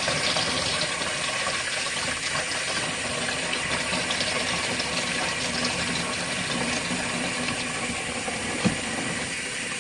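Water running steadily from a faucet, with hot and cold mixed to warm. A single short knock near the end.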